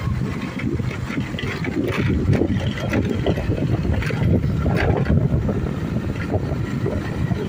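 Steady rumble of an open sightseeing train on the move, with gusty wind buffeting the microphone and a few short rattles.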